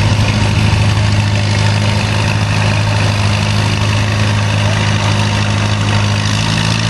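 Antique Minneapolis-Moline tractor engine running at a steady, unchanging pitch under load as it pulls a weight-transfer sled.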